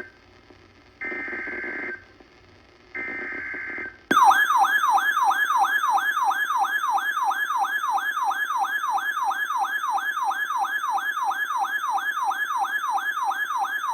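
Emergency Alert System header: two buzzing data-tone bursts about a second long each, then, about four seconds in, a loud alert tone that warbles up and down like a siren nearly three times a second. The sequence signals an incoming tornado watch.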